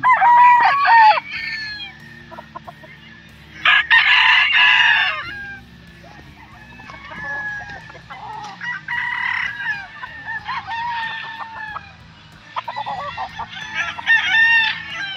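Several gamecocks crowing, their calls overlapping. The loudest crows come right at the start and about four seconds in, with more crowing through the second half.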